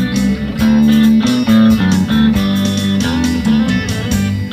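Live band of electric and acoustic guitars, bass and fiddle playing an instrumental passage with no singing: quick plucked notes over a steady bass line.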